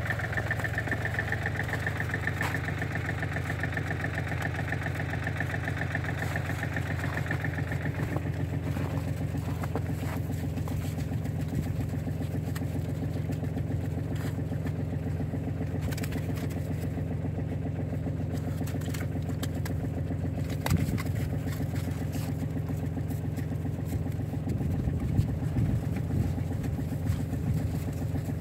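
Vehicle engine idling steadily, with a few sharp knocks near the end.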